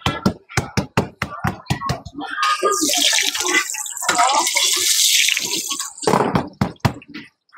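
A quick run of sharp taps, about five or six a second, then about three and a half seconds of loud hissing sizzle, typical of scallion pancake dough frying in hot oil on a griddle; a few more taps near the end.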